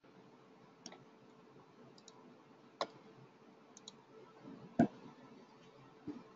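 Faint, scattered clicks and knocks in a quiet room, the loudest a knock a little before five seconds in, over a faint steady hum.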